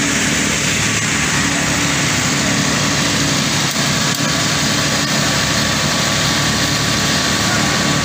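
Steady din of heavy construction machinery on a night concrete pour, diesel engines running without let-up, with a low steady hum under it.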